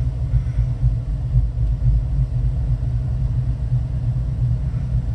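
Steady low rumble of a Holden VE Commodore heard from inside the cabin.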